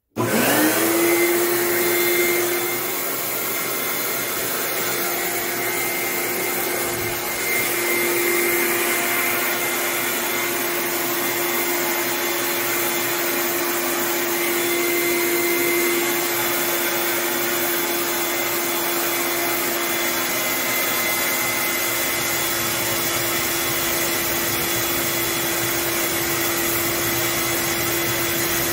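Electric air blower of a forced-air propane forge burner switched on. It spins up within about a second to a steady hum and whine over a loud rush of air, which drowns out speech. It is feeding air into the lit burner.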